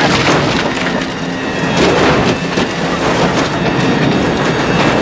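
A van crashing off the road into trees and brush: a sudden impact, then a long run of cracking, splintering wood and crunching metal.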